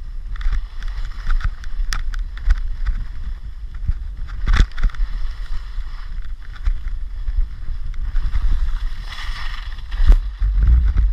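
Wind noise on a skier's worn camera while skiing downhill, with skis hissing and scraping over packed snow. A few sharp knocks come as the skis hit bumps, the loudest about halfway through and again near the end.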